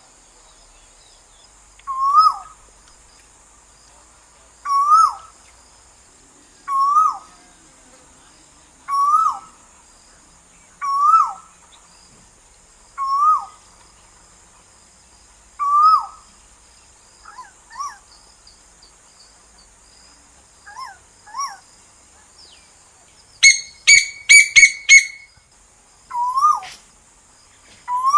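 Asian koel calling: a loud call that rises then drops, repeated about every two seconds. Partway through come a few fainter short calls, then a quick run of about five loud, sharp calls.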